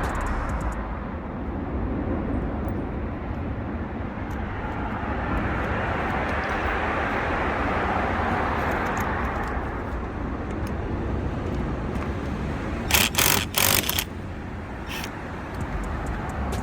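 Road traffic noise, a vehicle passing with a noise that swells and fades over several seconds, followed by a few sharp clicks or knocks near the end.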